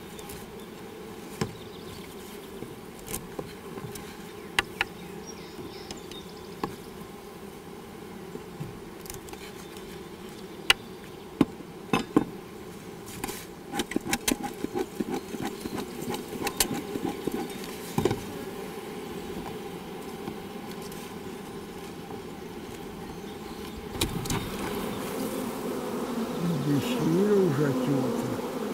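Honeybees buzzing steadily around an open wooden hive, with a scatter of sharp clicks and scrapes from a metal hive tool prying at the wooden frames in the middle. Near the end the buzzing grows louder, its pitch swooping up and down as bees fly close while a comb frame is lifted out.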